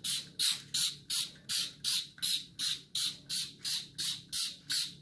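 Hand-pumped trigger spray bottle squirting a fine mist in quick, even strokes: short hissing sprays at about three a second.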